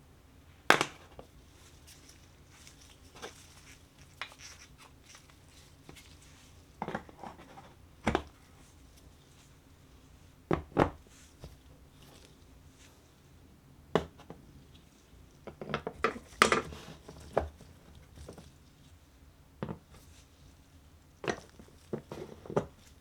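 Marbles dropping and running through a wooden Wonder World Trix Track marble run, giving separate sharp knocks and clacks as they hit the track pieces, with a busier run of hits about two-thirds of the way through.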